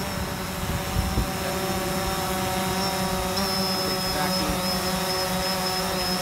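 DJI Phantom quadcopter's propellers whining steadily as it descends and hovers just above the sand to land, with a slight step up in pitch about three and a half seconds in.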